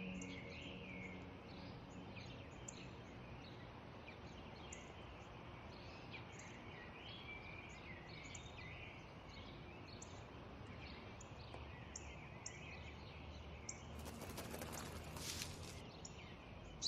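Quiet garden ambience: small birds chirping in many short notes over a faint steady hiss, with the last held tones of soft music fading out in the first second or two. A brief rustle comes about fourteen to fifteen seconds in.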